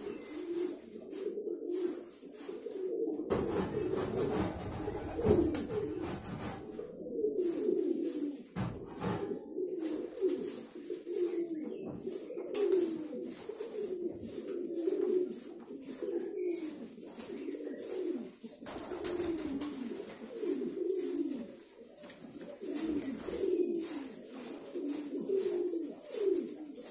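Several Andijan pigeons cooing over one another in a loft: repeated low, wavering coos with no let-up, joined by a stretch of rumbling noise about three to six seconds in and a few scattered clicks.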